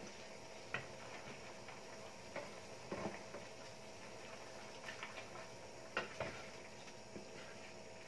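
Wooden spatula tapping and scraping against a stainless steel skillet while stirring pork in a simmering adobo sauce: about seven irregular knocks over a faint steady simmer and hum.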